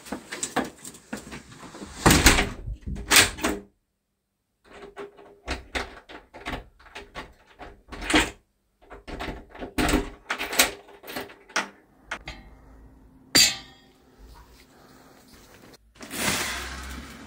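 A uPVC front door being pulled shut and locked with a key: a run of clicks, rattles and knocks from the handle and lock, loudest about 2 and 3 seconds in, with one sharp knock about 13 seconds in. A steady rushing noise starts near the end.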